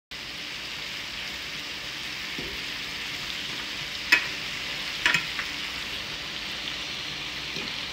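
Meat and vegetables sizzling in a frying pan on an electric stove, a steady frying hiss. A fork clicks against the pan twice, about four and five seconds in.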